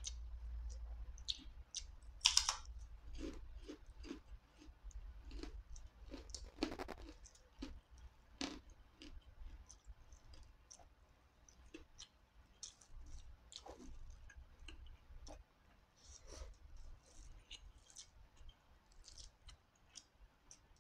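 Close-miked eating sounds: chewing with many short, irregular wet mouth clicks and lip smacks, as rice, fried dried fish and eggplant are eaten by hand.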